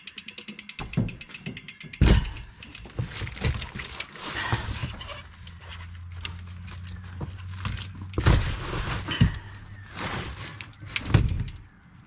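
Specialized mountain bike being lifted and laid into a car's boot on cardboard: frame and wheels knocking and thudding against the boot, with scraping and rattling between. A fast even ticking runs through the first second or so, and the loudest knocks come about two seconds in, again around eight seconds and near eleven seconds.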